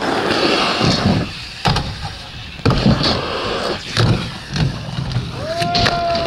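Skate wheels rolling over rough asphalt, with several sharp knocks from landings and a grind on a wooden ledge. Near the end a steady high tone slides up, holds for about a second and slides back down.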